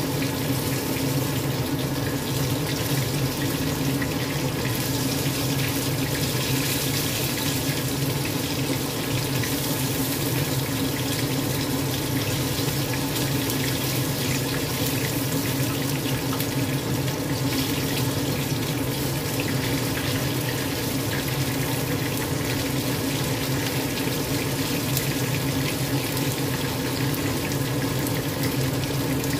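Cornstarch-coated chicken pieces sizzling steadily in hot oil in a wok, with a steady low hum underneath.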